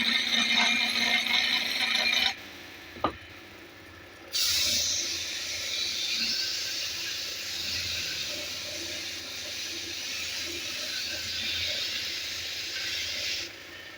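Wood lathe with a turning tool scraping and cutting the spinning workpiece, a steady hissing scrape. It stops after about two seconds, a single click sounds in the gap, then it resumes and runs steadily until just before the end.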